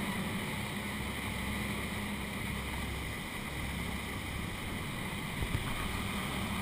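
Motor boat's engine running steadily with a low hum, mixed with wind on the microphone; two soft knocks near the end.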